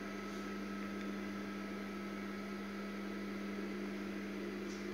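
Steady low electrical hum with an even background hiss, unchanging throughout: room tone.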